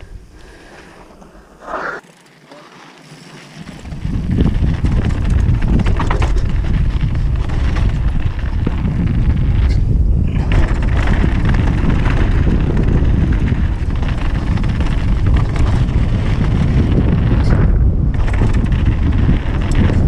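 Downhill mountain bike descending a dirt trail at speed: wind buffeting the camera microphone over the rumble and crackle of knobby tyres on dirt and gravel. Quieter for the first few seconds, then much louder from about four seconds in as the bike picks up speed.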